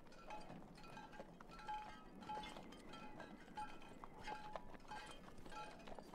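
Horses walking slowly, their metal tack jingling in short ringing clinks about twice a second over soft hoof steps.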